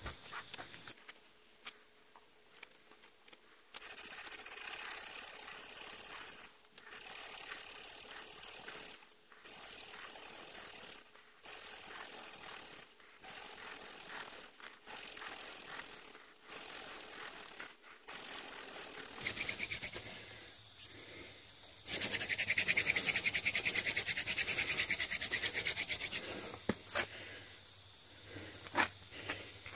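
Hand-drill friction fire: palms rubbing a half-inch wooden spindle as it grinds into the fireboard, in repeated runs of a second or two with short pauses between, starting about four seconds in. The strokes become louder and more continuous for a few seconds near the end, when he bears down going for an ember. Crickets chirr steadily over the last third.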